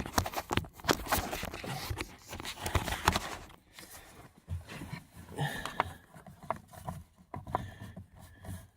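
Irregular clicks and knocks of hard plastic steering-column parts being handled and pushed into place while fitting a turn signal switch. The clicks come thick and fast for the first few seconds, then more sparsely.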